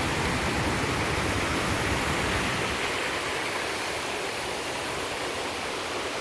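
Water of a man-made stepped waterfall cascading into pools, a steady rushing; its deeper part drops away about three seconds in.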